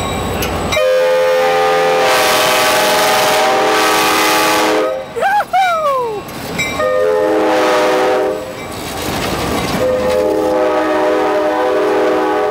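Diesel passenger locomotive's multi-chime air horn sounding at full volume as the train departs, three long blasts of a steady chord. Between the first two blasts, about five seconds in, come two short falling tones.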